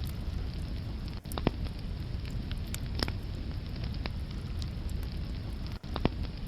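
Wood fire burning in a fireplace: a steady low rush with scattered sharp crackles and pops, the loudest about a second and a half in, at three seconds, and near the end.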